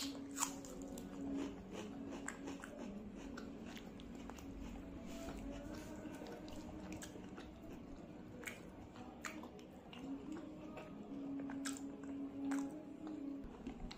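Close-miked chewing of a mouthful of rice, fish curry and raw onion: a run of small wet mouth clicks and light crunches at irregular intervals.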